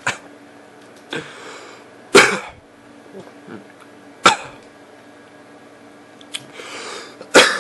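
A person coughing: a series of short, sharp coughs spread out over several seconds, three of them loud and the rest fainter.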